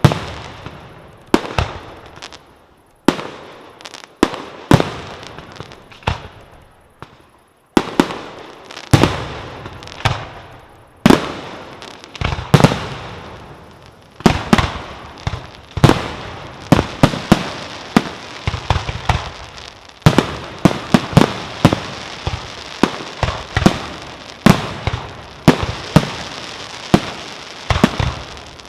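Fireworks display: aerial shells fired from mortars and bursting overhead, with sharp bangs at first about a second apart, growing into a rapid, overlapping barrage about halfway through, with crackle between the reports.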